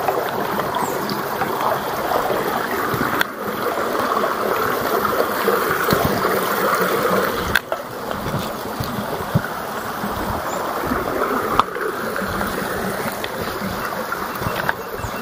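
Small woodland stream babbling steadily, with three sharp knocks spaced about four seconds apart.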